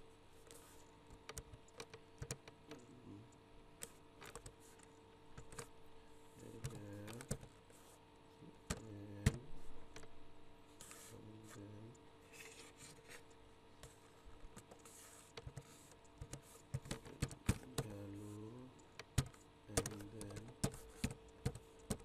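Computer keyboard typing: irregular key clicks, coming in quicker runs of sharper keystrokes near the end.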